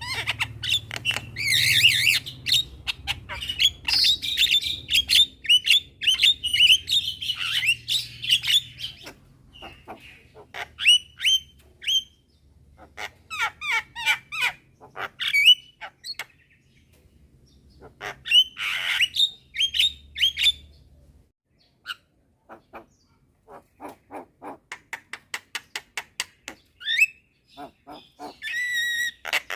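Javan mynas calling: quick chattering runs of short clicks and whistled notes, broken by harsh squawks about two seconds in and again near 19 s.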